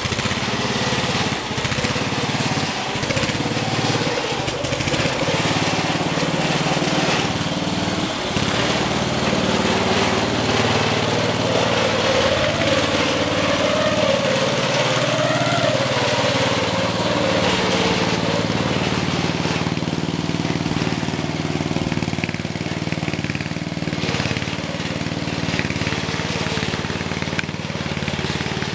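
Small engine of a homemade ice resurfacer running steadily as the machine drives laps around the rink, its pitch wavering a little in the middle.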